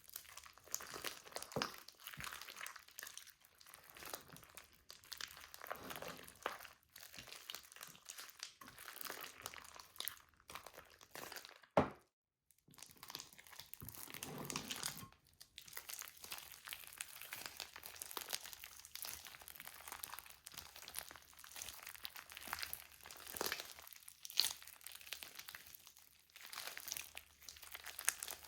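Slime being squeezed and worked by hand, a run of irregular crackly, crinkling squishes. A sharp click a little before the halfway point is the loudest sound, followed by a moment of silence.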